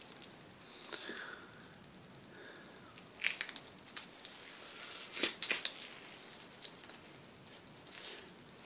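Crinkling, crackling handling noise in a few short bursts: a cluster about three seconds in, a louder one about five seconds in and a shorter one near the end.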